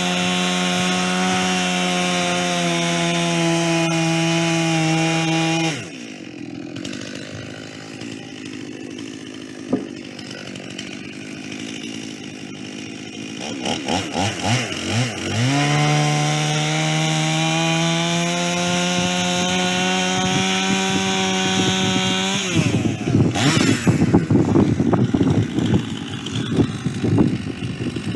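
Chainsaw on a chainsaw mill running at full throttle through white pine, dropping to idle about six seconds in, then revved a few times and back up to full speed. Near the end it falls to an uneven, lumpy low-speed running.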